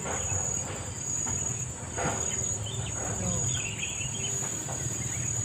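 A steady, high-pitched insect chorus, a shrill trill that pulses slightly, over a low rushing noise from the fast-flowing river. A faint knock about two seconds in.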